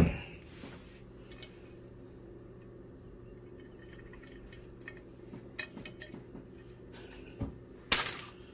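Small metal clicks and clinks of a tool and terminal hardware (nut, washer) being worked onto a subwoofer's terminal post, with a thump right at the start and a sharper, louder clink near the end.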